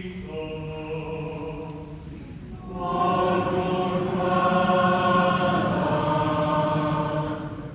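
Sung liturgical chant in long held notes: a quieter phrase, then about three seconds in a louder, fuller response from many voices together.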